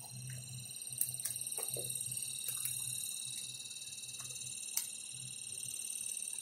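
Several light clicks and taps from an LCD monitor's controller board and flat ribbon cable being handled and moved on the panel, over a steady high-pitched whine and a faint low hum.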